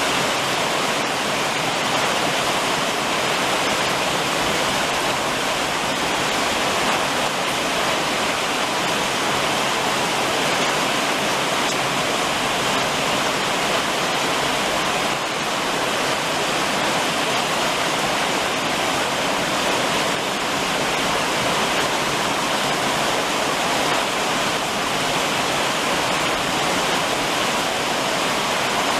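Summer rain drumming on a roof in a steady, even downpour, with no single drops standing out.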